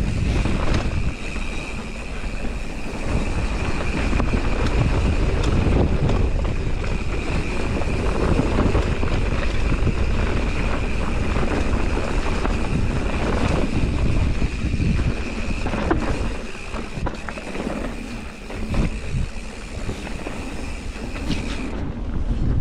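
Mountain bike descending a dirt singletrack: wind buffeting the microphone, tyres running over dirt and the bike rattling and knocking over bumps and roots. A steady high-pitched hum runs underneath and cuts off suddenly near the end.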